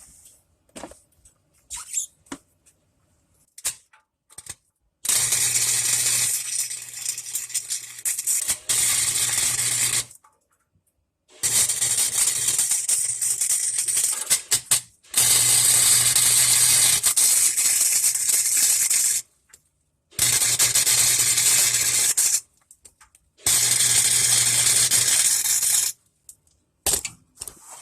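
Harbor Freight flux-core wire welder laying weld on a broken exhaust resonator flange: the arc crackles and sizzles with a low buzz in about five runs of two to five seconds each, stopping and starting abruptly with short pauses between.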